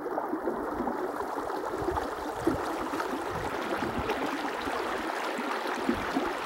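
Shallow river running steadily, a rushing, rippling water sound, with a few low rumbles mixed in.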